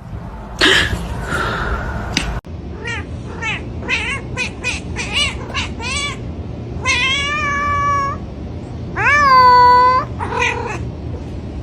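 A domestic cat meowing over and over: a run of short meows about two a second, then two longer drawn-out calls and a final short meow. A second or so of rough noise comes before the meows.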